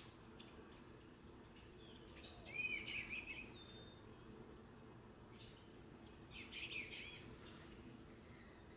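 Male eastern bluebird singing soft warbled phrases, twice: about two and a half seconds in and again near seven seconds. A single sharp, high chirp just before the second phrase is the loudest sound. The song is his courting call to the female to nest again.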